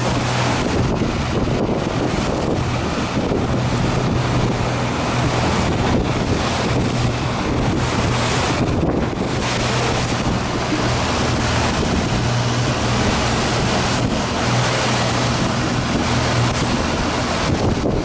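Yamaha 200 outboard motor running at a steady, even pitch as the boat trolls, under the wash of its churning wake and wind buffeting the microphone.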